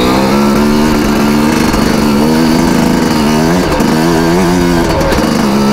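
Two-stroke dirt bike engine running under a rider on an icy trail, its note rising and falling a few times as the throttle is worked on and off.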